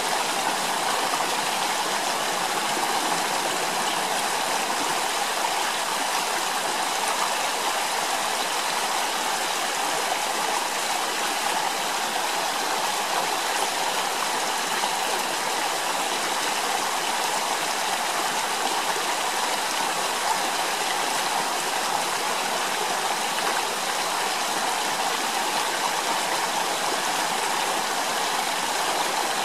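Steady rushing of a stream's flowing water, an even unbroken wash of sound with no distinct events.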